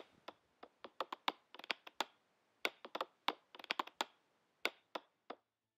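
Faint, irregular clicks and taps, some bunched in quick runs of three or four.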